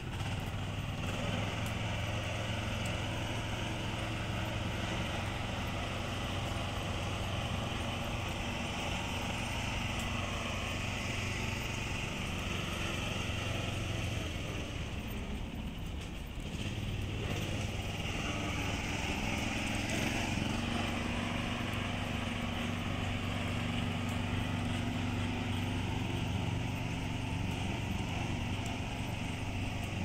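A small motor engine running steadily, with a steady hiss above it; the hum dips about halfway through and comes back on a higher note.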